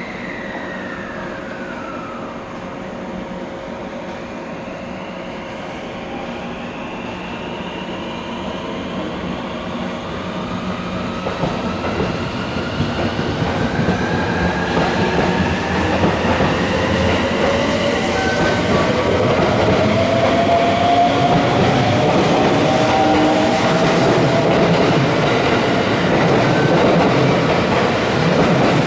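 Electric train pulling out: its traction motors whine, rising steadily in pitch as it gathers speed, and the sound grows louder as wheel clatter over the rails joins in. A short falling whine is heard in the first couple of seconds.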